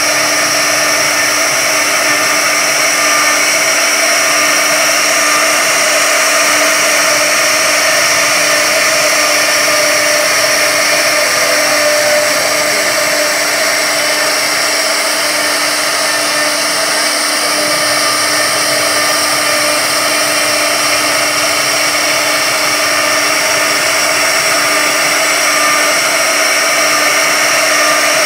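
CNC router spindle running at high speed with a steady whine while its small bit carves a 3D relief pattern into a wood panel.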